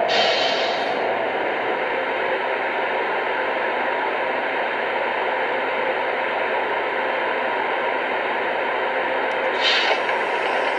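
Lionel Vision Line GG1 O-gauge model electric locomotive running along the track: a steady hiss of its running sounds and rolling wheels, with a brighter surge of hiss at the start and again near the end.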